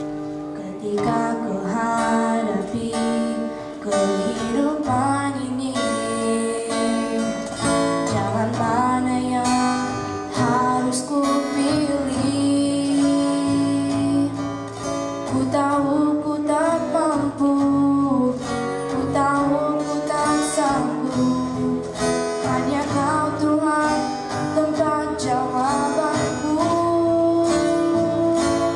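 A young female vocalist singing into a handheld microphone over instrumental accompaniment, with the vocal line coming in about a second in.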